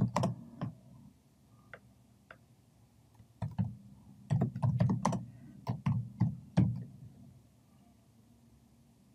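Typing on a computer keyboard: a few scattered clicks in the first couple of seconds, then a quick run of keystrokes from about three and a half to seven seconds in.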